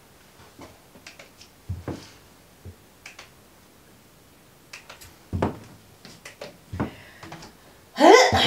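A dozen or so light, scattered clicks and taps at irregular intervals, then a woman's voice starting near the end.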